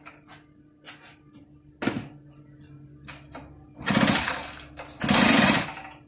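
Two pulls on the recoil starter of an Echo PB-8010 backpack blower's two-stroke engine, choked, each under a second long with the engine cranking over in a fast rattle; it does not start. A sharp knock comes about two seconds in.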